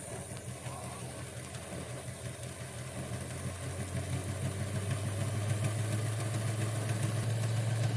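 Small electric motor and gear train of a model railway railcar running on the bench, a steady hum that slowly grows louder; the gears have just been repaired with CA glue and bicarb soda and run without clunking.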